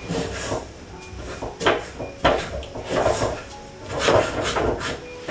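Wooden spoon scraping and knocking against an aluminium pot in repeated uneven strokes, stirring a dry, crumbly mix of maize flour and egg.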